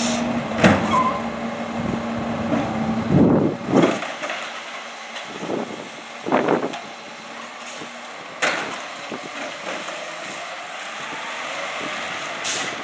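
Garbage truck running, with a steady engine hum that stops about two-thirds of the way through, broken by several short, sudden air-brake hisses and knocks.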